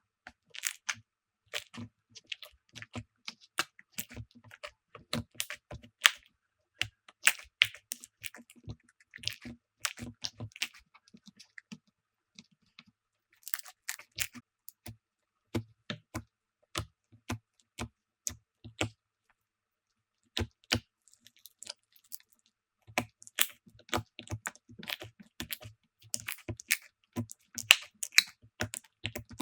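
Slime being pressed and squeezed by hand, giving irregular runs of sticky clicks and crackles that stop for a second or two twice.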